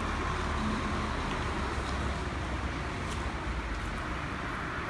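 Steady outdoor background noise, a low rumble with a hiss over it, broken by a few faint clicks.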